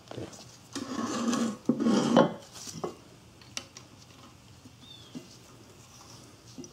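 Metal clattering and clinking as a steel ring exhaust gasket and a catalytic converter's inlet flange are handled and the gasket is set into the flange groove: two clattering bursts in the first couple of seconds, then a few light clicks.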